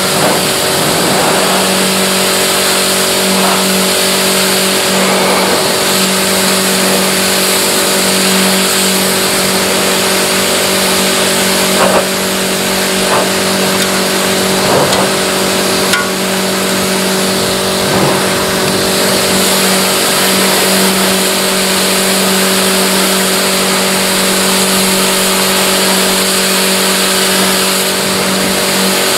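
A motor running steadily under a loud, even hiss, with a few brief knocks about halfway through.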